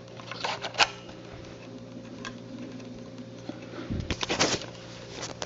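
Plastic clicks of a View-Master viewer and reel being handled: two sharp clicks about half a second in, then a quick run of clicks about four seconds in as the reel is fitted and the advance lever worked.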